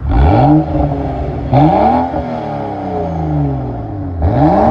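BMW F10 535i's turbocharged 3.0-litre straight-six revved three times, each rev rising quickly and falling back slowly. The exhaust has its mufflers deleted but still has the stock downpipe, and the owner says it still wasn't that loud.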